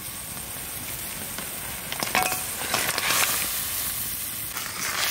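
A wok of broth boiling with a steady hiss; from about two seconds in, fried crab pieces are tipped from a plate into it, with a run of splashes and clatters.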